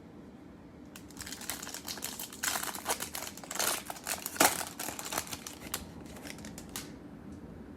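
Crinkling and crackling of a trading-card pack's foil wrapper being handled and torn open, a dense run of small rasps and clicks with one sharper snap about four and a half seconds in.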